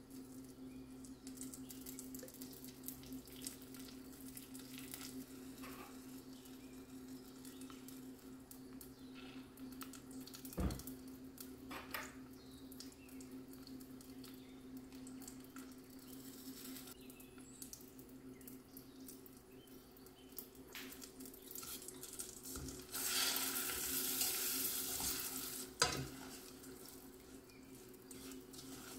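Butter melting with brown sugar and honey in a stainless steel saucepan, sizzling faintly over a steady low hum, with a sharp knock about ten seconds in and another near the end. A louder sizzling hiss lasts for about three seconds shortly before the wooden spoon starts stirring.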